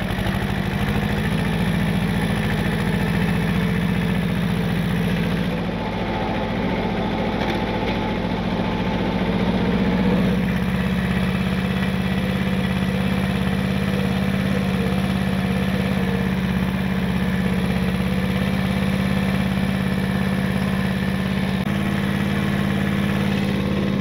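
Compact farm tractor's engine running steadily while the tractor drives through snow. The engine note shifts slightly and gets a little louder about ten seconds in.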